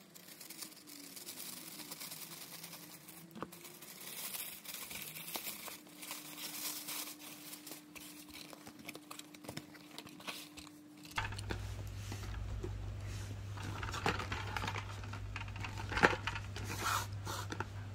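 Plastic packaging bag crinkling and tearing as it is cut open and the contents unwrapped, with small rustles and clicks throughout. A low steady hum sets in about two-thirds of the way through.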